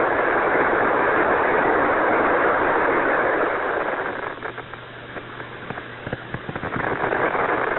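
Radio static hiss on the air-to-ground voice link between the lunar module and Mission Control, loud for the first half, then dropping about halfway to a lower hiss with crackles and a faint steady hum.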